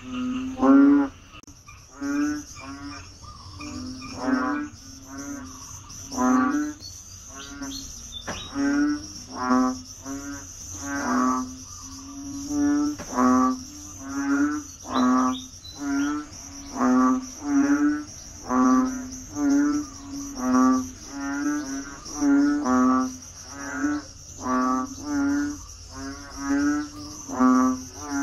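Frogs giving breeding calls, one short pulsed call about every second, repeating without a break. A steady high insect trill runs underneath.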